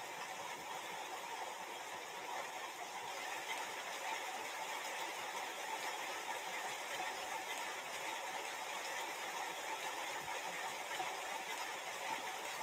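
Steady hiss of room noise, even and unchanging, with no distinct sounds in it.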